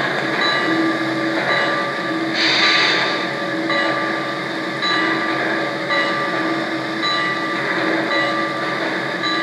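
Onboard sound system of a Lionel O-gauge Pennsylvania Railroad M1a steam locomotive model, playing standing-locomotive sounds: a steady mechanical pulse that repeats about once a second, with a burst of steam hiss about two and a half seconds in.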